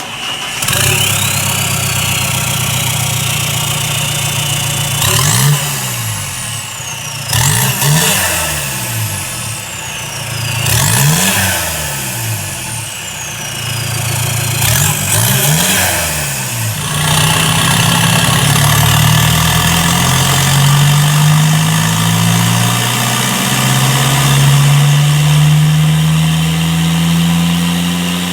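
Mahindra Roxor's 2.5-litre four-cylinder turbo diesel, breathing through a 3-inch straight dump pipe off the turbo. It fires up about a second in and idles. It is then blipped four times, each rev followed by a falling turbo whistle. For the last ten seconds or so it pulls steadily on the dyno, its pitch and turbo whistle slowly rising.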